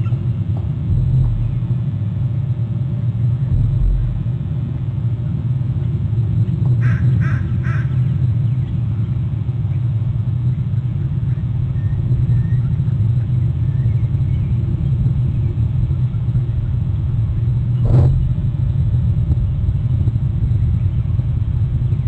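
Steady low rumble of wind buffeting an outdoor webcam microphone. About seven seconds in, a bird gives three quick high notes, and near the end there is a single sharp click.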